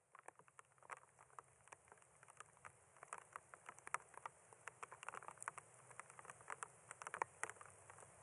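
Faint raindrops pattering: many irregular, sharp drop ticks over a soft steady hiss of rain, fading in over the first couple of seconds.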